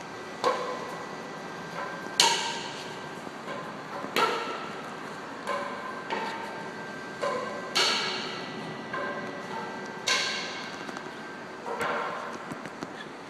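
Irregular metallic clanks, about ten of them, each ringing briefly and fading, spaced a second or two apart; the loudest comes about two seconds in.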